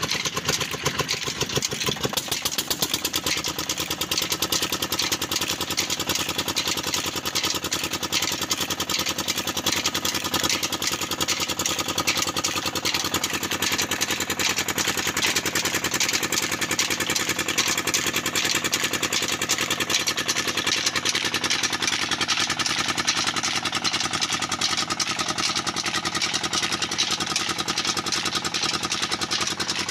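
Old diesel engine running steadily just after being started, with a rapid even beat, turning the flat belts and pulleys of a wood-cutting machine.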